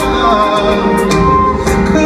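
Live concert music heard from the audience through the hall's PA: a male singer holding long, sliding notes over a band with steady chords and light percussion.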